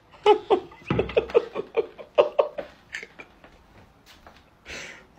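A person laughing in a quick run of short, high-pitched bursts that fade out about three seconds in, then a breath drawn in near the end.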